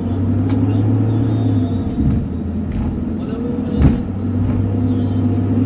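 Car driving, heard from inside the cabin: a steady low engine and road rumble, with a few light knocks and a louder thump about four seconds in.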